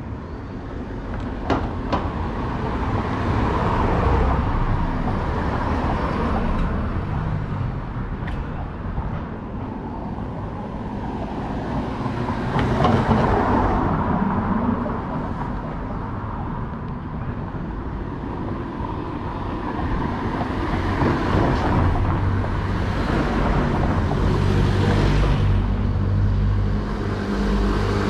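Street traffic: several vehicles pass one after another, the noise swelling and fading. Two sharp clicks come about a second and a half in. An engine's low drone builds over the last few seconds.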